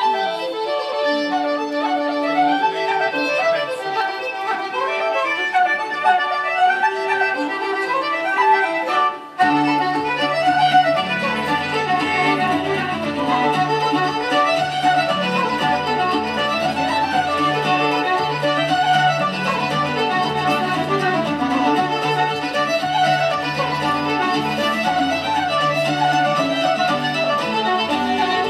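Irish traditional fiddle music for dancing. About nine seconds in it breaks off for a moment and a tune with a steady bass line under the fiddle starts.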